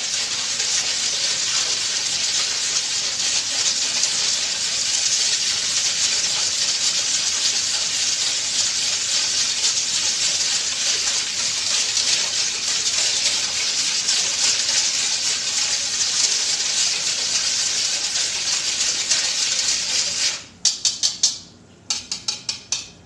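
Wire balloon whisk beating water with dissolving brown sugar and salt in a stainless steel bowl: a steady, fast swishing and splashing of liquid with the wires scraping the metal. Near the end the whisking stops and the whisk is knocked against the bowl in two short runs of quick metallic taps.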